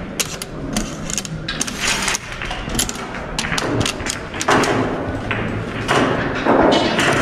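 Sliding score markers on a wall-mounted snooker scoreboard being pushed along their metal rails: a run of sharp clicks and knocks mixed with scraping rustles.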